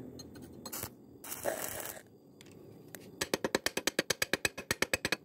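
Hand-held hammer tapping rapidly on the weld bead at the base of a stick-welded steel tube, about ten light metallic strikes a second over the last two seconds, typical of chipping slag off an E6013 weld. A short scrape comes about a second and a half in.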